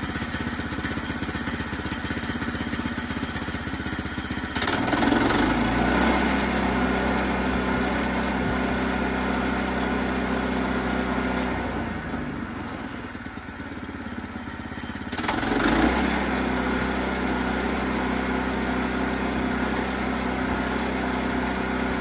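Woodland Mills HM122 sawmill's 7 hp Kohler single-cylinder engine running. It is throttled up about four seconds in, eases back around twelve seconds, and is throttled up again about fifteen seconds in. It keeps running under throttle rather than chugging out, with the low-oil sensor wire disconnected.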